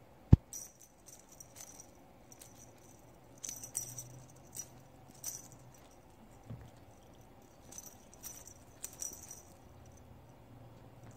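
Small metal jingle bells on a feather cat-wand toy tinkling in short, irregular shakes as the toy is swung and batted. There is one sharp, loud click about a third of a second in.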